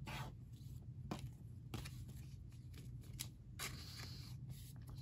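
Faint handling of football trading cards: a few soft taps and a brief swish as cards are slid and stacked on a table, over a low steady hum.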